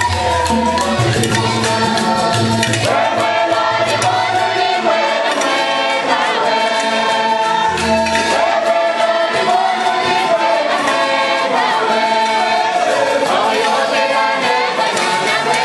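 Church congregation and choir singing a hymn together in many voices. A low drum beats under the singing for the first few seconds and again briefly about halfway through.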